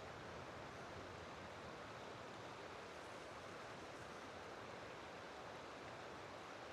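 Faint steady rush of flowing river water.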